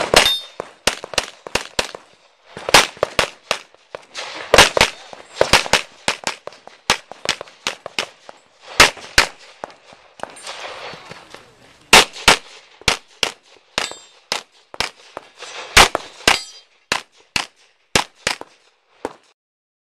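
Pistol shots in a competition course of fire: a long run of sharp reports, many fired as quick pairs, in groups broken by short pauses. The shooting stops shortly before the end.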